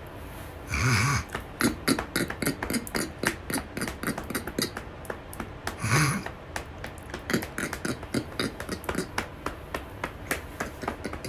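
Irregular light clicks and taps, a few a second, with two brief louder sounds about a second in and about six seconds in.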